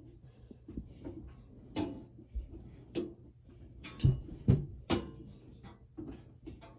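Heavy EAS equipment rack being shifted and set against a shelf: a run of irregular knocks and clunks, the two loudest and deepest about four seconds in, over a faint steady hum.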